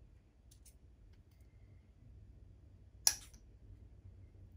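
Scissors snipping through a plastic drinking straw: one sharp snip about three seconds in, after a couple of faint clicks of the blades near the start.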